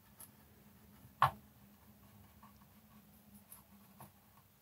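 Faint scratching and light taps of an old paintbrush working a thin enamel wash over plastic model parts, with one sharper tap about a second in.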